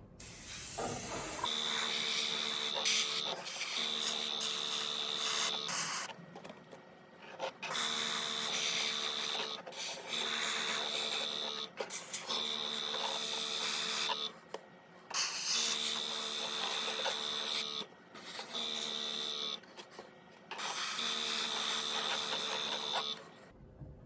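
Airbrush spraying paint in repeated bursts of a second or two with short pauses: a steady hiss of air with the hum of its compressor, starting and stopping with each pull of the trigger.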